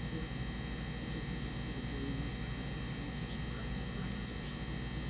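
Microwave oven running: a steady electrical hum made of several fixed tones, unchanging throughout.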